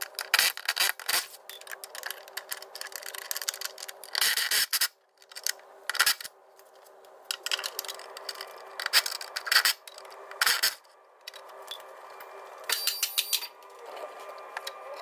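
Spanners working the suspension arm's upper nuts and bolts: irregular bursts of metallic clicking and scraping as the nuts are undone, over a faint steady hum.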